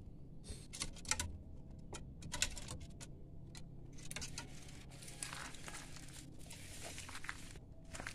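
Light irregular tapping and clicking on a slatted wooden cage, then a few seconds of rustling and scraping.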